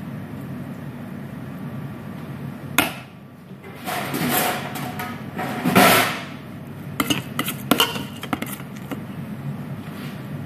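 Handling sounds at a kitchen counter over a steady low hum: a sharp knock about three seconds in, two swells of rustling, then a run of quick taps and clicks as a knife is worked on an avocado.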